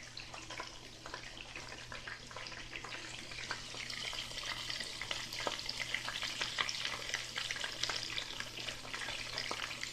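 Chicken frying in oil in a pan: a steady crackling sizzle with many small pops, growing a little louder about four seconds in.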